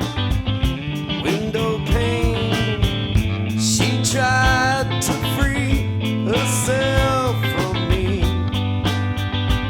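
Rock band playing an instrumental passage: a steady bass line and drum kit under electric guitar. Sliding, bending lead lines come in twice in the middle.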